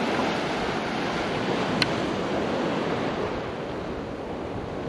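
Ocean surf washing steadily, with wind buffeting the microphone; a single sharp click about two seconds in.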